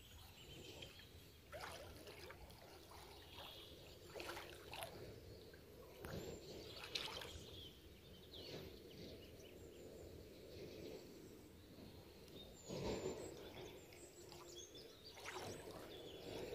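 Faint, irregular splashing and trickling of shallow water as a person wades and handles plastic bottles in it.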